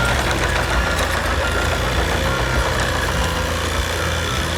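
Steady low engine rumble, like a heavy vehicle running at idle.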